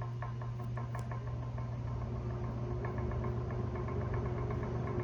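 Vintage Penncrest 20-inch box fan started on medium speed: a steady electric motor hum with a light, rapid, regular ticking, growing slightly louder as it comes up to speed.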